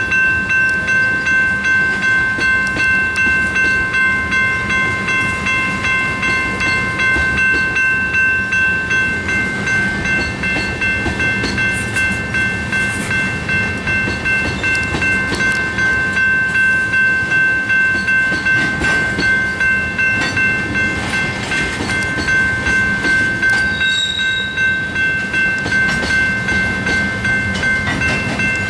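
Two electronic railroad crossing bells, a General Signals Type 2 and a Safetran Type 1, ringing continuously in a fast, even rhythm while the crossing is activated. Under them, a slow freight train of tank cars rumbles through the crossing.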